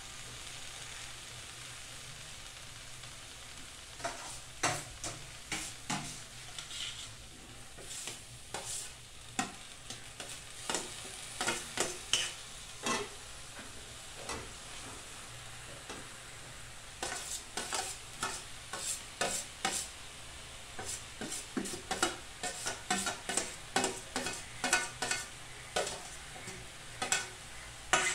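Moringa leaves and egg frying in an aluminium kadai with a steady sizzle, while a perforated metal spoon scrapes and clinks against the pan as the food is stirred. The stirring starts about four seconds in, pauses briefly midway, then comes back as quick repeated strokes.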